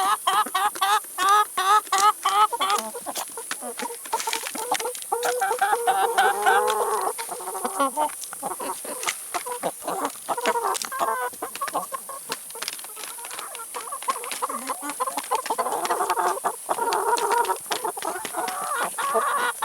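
Domestic chickens clucking and calling: a quick run of repeated rising notes in the first few seconds, then overlapping clucks from several birds. Many sharp clicks sound throughout.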